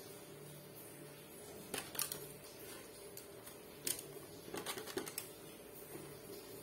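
Banana leaves crackling and rustling as they are rolled and folded by hand into lontong wrappers, a few short crisp crackles a couple of seconds apart.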